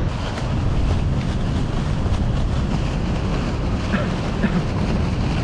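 Steady rush of airflow buffeting the microphone of a paraglider in flight, with faint scattered ticks throughout.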